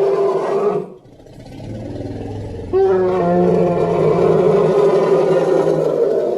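Monster roar sound effects for a Godzilla and T-rex hybrid creature: a roar cuts off about a second in, a low rumbling growl follows, then a long, loud pitched roar starts near the three-second mark and holds for about three and a half seconds.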